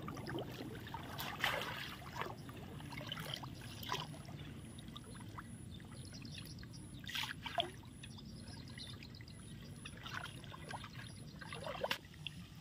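Faint water splashing and dripping in shallow muddy water, with a few short, sharper splashes at irregular moments.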